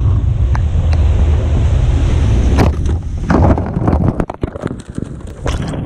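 Heavy wind rumble on the microphone of a speeding jet ski, with water spray hiss. From about two and a half seconds in comes a rapid series of sharp cracks and snaps as the jet ski ploughs through tree branches.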